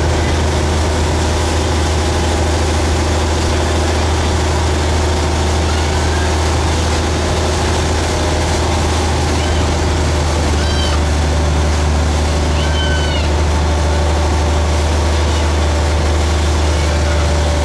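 Boat engine running at a steady pace as the boat moves along the river, a loud unbroken low drone with the rush of the wake and wind over it. A few brief high calls sound over it around the middle.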